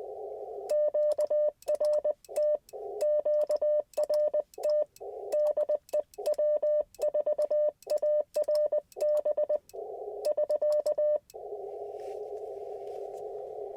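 Morse code from an Icom IC-705 heard as its CW sidetone: a single beep of about 600 Hz keyed into dits and dahs for about ten seconds. Before and after it, the receiver's band hiss on 30 meters comes through the narrow CW filter and drops out while the keying goes on.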